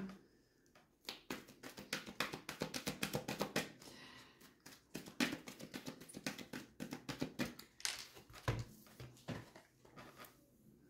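Oracle deck being handled by hand: quick runs of light clicks and rustling of card and paper, with short pauses between runs.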